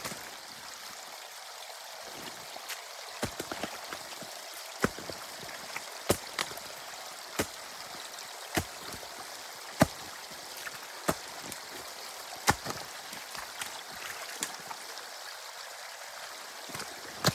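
Water running steadily through a breached beaver dam in a drainage canal, with sharp clicks scattered irregularly about once a second.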